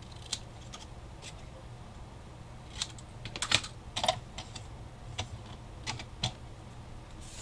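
Scattered light clicks and taps, busiest about halfway through, as a strip of cardstock is handled and set down on a plastic paper trimmer and cutting mat.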